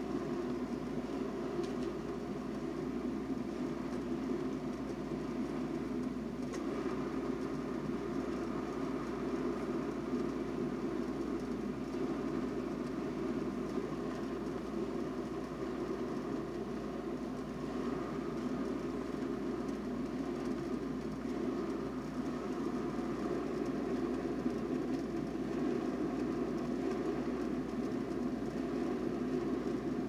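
Topwit glass electric kettle heating water, with a steady low rumble as small bubbles form on the heating plate; the water is well on its way to the boil but not yet simmering.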